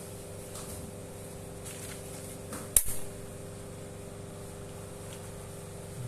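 Spring-loaded needle-free injector pen firing once: a single sharp snap about three seconds in, with a brief rattle just after it.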